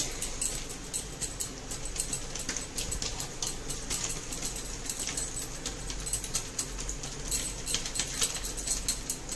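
Arsa pitha deep-frying in hot oil: a continuous, irregular crackle and spatter of popping oil, the oil spurting up in a 'fountain'.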